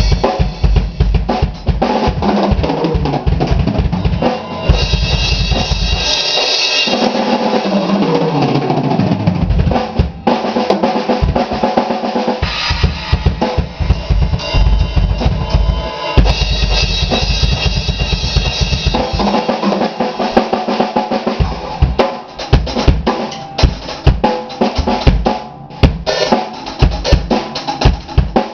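Improvised drum solo on a PDP X7 all-maple drum kit: fast bass drum runs, snare hits and crashing cymbals, with a roll down the toms, falling in pitch, about seven to nine seconds in.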